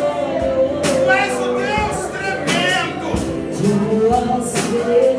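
Portuguese-language gospel worship song: a singing voice with held, sliding notes over a band, with steady drum hits.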